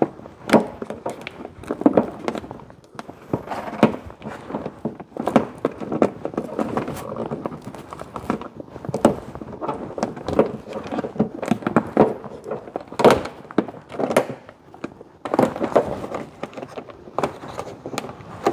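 Plastic vapor-barrier sheet on the inner car door being peeled away from its sticky sealant with a plastic trim tool: irregular crackling and tearing with many sharp clicks at random spacing.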